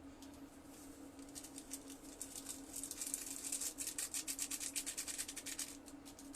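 Sardines frying in a pan on an amplifier-driven heater, crackling and popping; the pops come thick and fast in the middle and thin out near the end, over a steady low hum.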